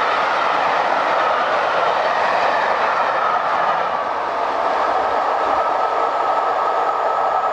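Rolling noise of a passenger train's coaches passing at speed and then running away down the line, a steady loud rush.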